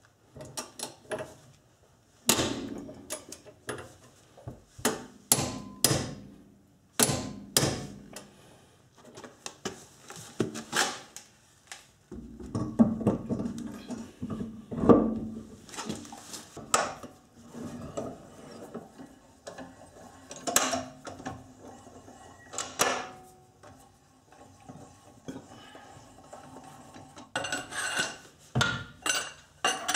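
A string of sharp metal clanks and clicks from hand tools and parts: a torque wrench on the rear strut's lower bolt, then the road wheel being hung back on the hub and its lug nuts fitted, with a quicker run of clinking near the end.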